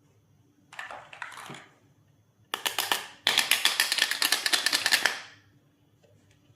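Plastic pieces of a toy doctor set being handled: a short rustle, then two runs of rapid rattling clicks, the second longer and louder.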